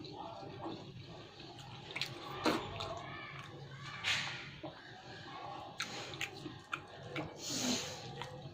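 A person eating pulao and curry close to the microphone: wet chewing and mouth sounds with scattered clicks and smacks, a few louder about two and a half, four and seven and a half seconds in.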